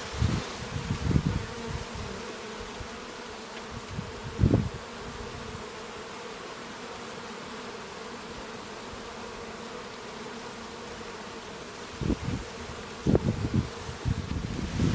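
Bees buzzing in a steady hum. Louder low gusts of sound come and go in the first second or so, once about four and a half seconds in, and again over the last three seconds.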